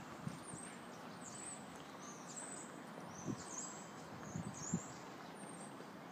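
Steady outdoor background noise with a handful of scattered dull thumps and faint high chirps.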